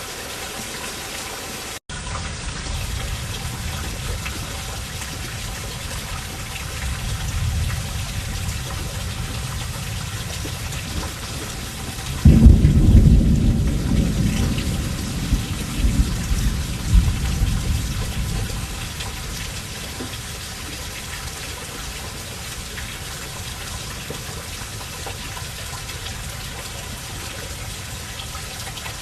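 Steady rain falling. About twelve seconds in, thunder breaks suddenly and rolls on in several low peaks for about six seconds before fading back under the rain.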